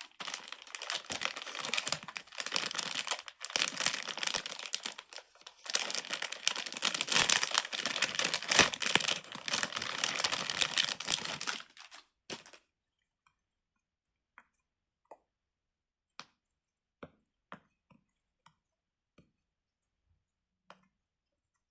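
Silicone pop-it fidget toys being handled, with dense rapid clicking and crinkling for about twelve seconds. The sound then stops, leaving single faint pops every second or so as bubbles are pressed one at a time.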